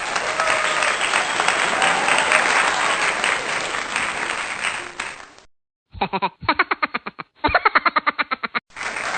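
Clapping and crowd noise for about five seconds, then a brief silence and two short runs of quick, even pulses, about eight a second, before the clapping comes back near the end.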